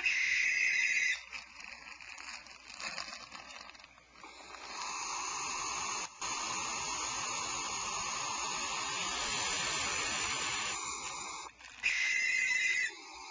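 Barn owls calling: a harsh screech lasting about a second at the start and again near the end. Between them comes a long hissing call of several seconds, with a brief break partway through.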